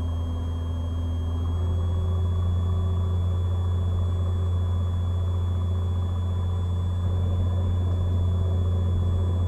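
Cessna 182's six-cylinder engine and constant-speed propeller droning steadily in the cabin on final approach. About two seconds in, the drone rises slightly in pitch and level.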